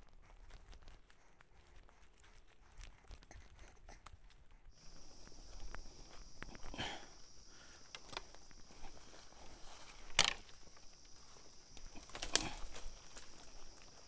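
Footsteps on a dirt forest trail, with a few louder crunching steps near the middle and end. A steady high-pitched insect drone comes in about five seconds in.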